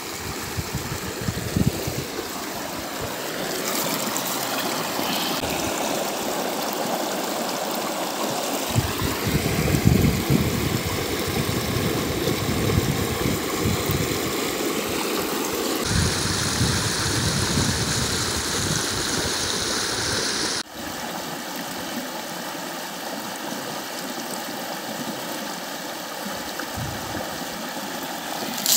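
Rain-swollen stream of muddy water rushing over a rock slab: a steady rush of water whose tone changes abruptly a few times.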